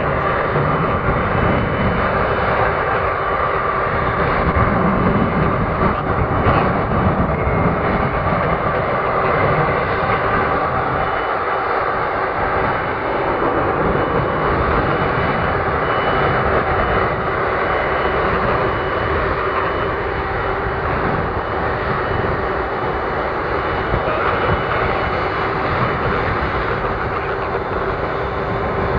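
Airbus Beluga XL's twin Rolls-Royce Trent 700 turbofan engines running steadily, a jet whine of several held tones over a continuous rush.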